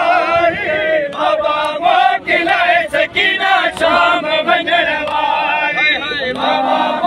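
A crowd of male mourners chanting a noha, a Muharram lament, together in a loud sung chorus. Sharp strikes cut through it every second or so.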